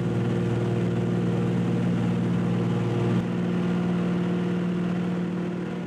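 Floatplane's piston engine running steadily. Its note changes about three seconds in, then it fades away near the end as the plane flies off.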